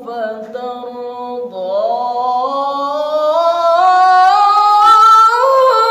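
Male qari reciting the Quran in melodic style with no added reverb or effects, drawing out the word 'fatarda' of Surah Ad-Duha into one long ornamented note that climbs slowly in pitch and steps higher near the end.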